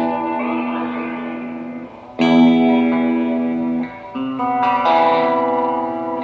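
Electric guitar played through a pedalboard of effects pedals: chords strummed and left to ring and fade, with a fresh chord about two seconds in and two more after about four seconds.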